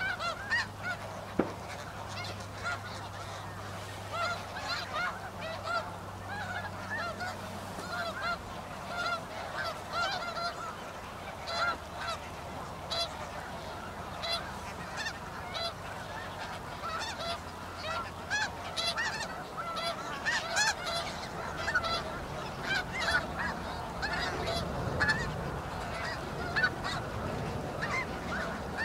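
A large flock of snow geese calling all at once, a dense, unbroken chorus of short overlapping honks.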